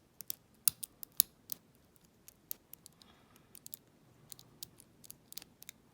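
Lock pick and tension wrench working the pin tumblers inside the keyway of a small Enoch padlock: irregular sharp metal clicks and ticks as the pins are lifted and set one at a time under light tension. The clicks come thick and loud in the first second and a half, then fainter and more spaced out.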